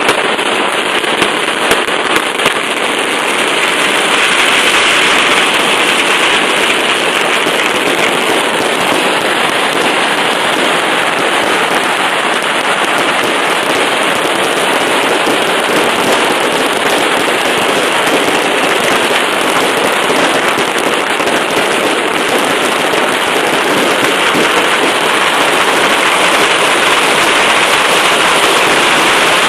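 Firecrackers going off in a dense, continuous crackle, with a few sharper bangs in the first couple of seconds.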